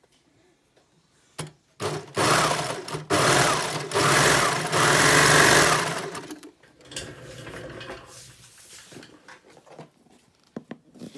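Baby Lock Imagine overlocker (serger) stitching along a fabric strap. It starts about two seconds in, runs in two bursts with a brief stop between them, and winds down about six seconds in. Quieter handling sounds and a few clicks follow.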